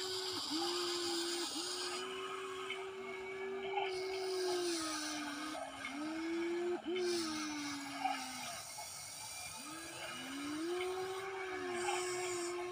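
Electric motors of a Huina 1593 radio-controlled excavator whining as the boom, arm and bucket move. The whine rises, holds and sags in pitch with the load, stopping and starting several times, with a break of about a second in the middle.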